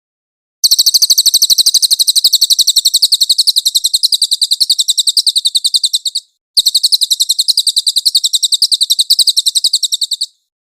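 Cililin bird singing: two long, rapid trills of evenly repeated high, thin notes, about a dozen a second, with a short break between them.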